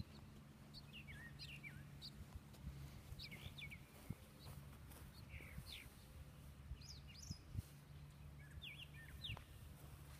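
Songbirds chirping, short quick calls repeating throughout over a faint steady low hum, with one short knock about seven seconds in.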